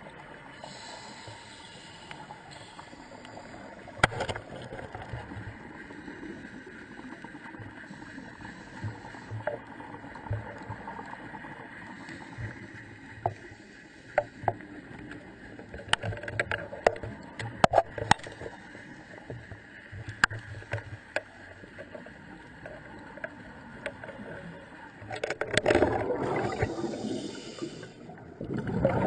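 Steady watery hiss with scattered sharp clicks and knocks, then a louder gurgling rush of water about four seconds before the end.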